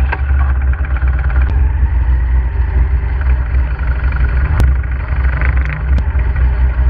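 Motorcycle riding along a road, its engine running steadily under a heavy low rumble of riding noise. Two brief sharp clicks come about four and a half and six seconds in.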